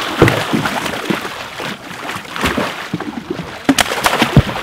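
Water splashing and slapping as a juvenile blacktip shark thrashes at the side of the boat, with a string of sharp knocks and thumps; the shark drops back into the water with a splash near the end.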